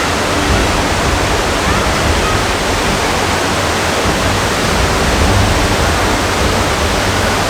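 Gordale Scar waterfall in spate after heavy rain, a loud, steady rush of falling water.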